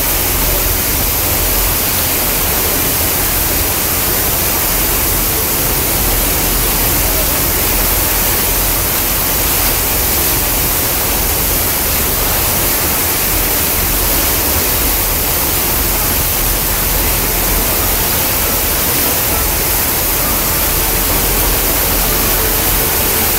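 Steady rushing noise from a moving boat on open water: wind on the microphone and water rushing past the hull, with a low rumble underneath.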